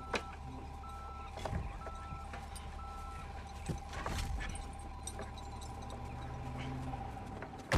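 A machine's engine running steadily, with a short beep repeating about once a second that stops about three seconds in, and a few sharp knocks and clanks.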